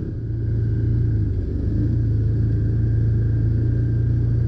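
Can-Am Commander side-by-side's V-twin engine running steadily under way, a low even drone heard from the driver's seat.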